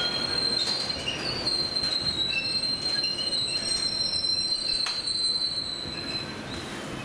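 Bogie flat wagons of an engineers' train loaded with new rails rolling past, their wheels giving a steady high-pitched squeal with fainter squealing tones above and below it, over rolling noise and a few sharp clicks about once a second. The squeal fades out near the end as the last wagons pass.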